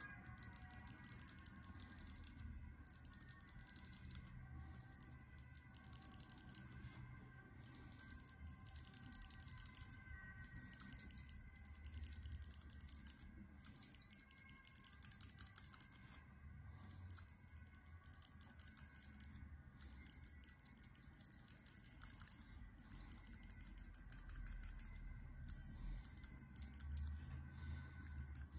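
Copic marker's felt tip scratching over paper in rapid small strokes as it fills in a patch of ink, faint and continuous, with brief pauses every second or two.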